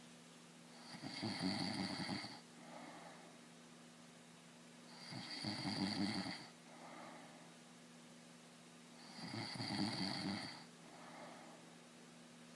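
A man snoring in his sleep: three loud snores about four seconds apart, each followed by a softer breath.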